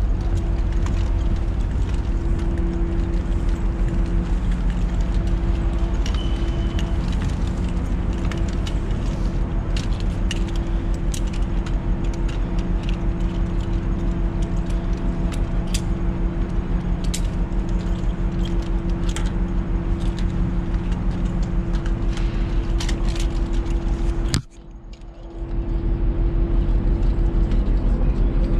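Steady drone of a ship's machinery with a constant hum and a regular low pulsing, over which metal rope-access hardware (carabiners and descenders on a harness) clinks and jangles with the wearer's movements. The drone cuts out briefly near the end, then returns.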